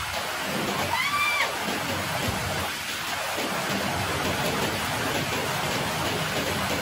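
Steady rain falling on a wet concrete court. About a second in, a short high-pitched voice rises and falls briefly.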